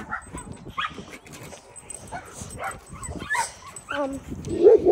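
Dogs barking and yipping in short calls, ending in a fast run of loud barks near the end.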